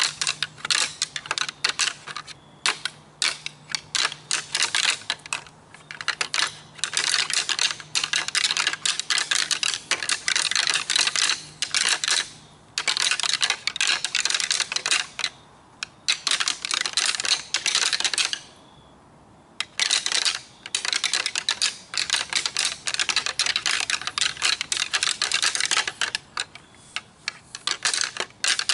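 Synthetic rattling antlers clashed and ground together in rapid bouts of clicking, with several short breaks, the longest about two-thirds of the way through. It is a deer-hunting call that imitates two bucks sparring.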